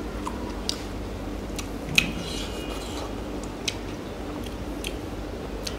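Close-up chewing of food, with scattered wet mouth clicks and crunches, the sharpest about two seconds in.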